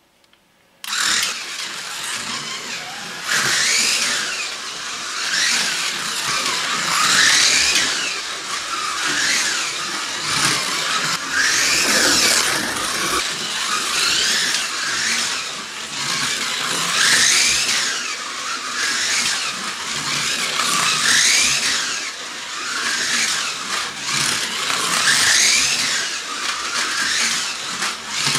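Hornby Scalextric NASCAR slot car running laps: its small electric motor whines over a steady hiss, the whine rising in pitch every couple of seconds as the car speeds up.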